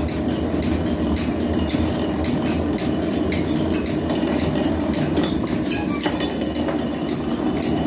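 Belt-driven metal planer running: a steady mechanical drone from the flat-belt drive and gearing, with many small metallic clicks and rattles through it.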